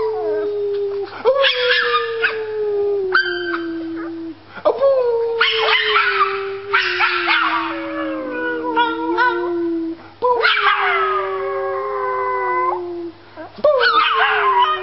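A small dog howling with a man howling along: long drawn-out howls that each slide slowly down in pitch, four of them, one after another with short breaks.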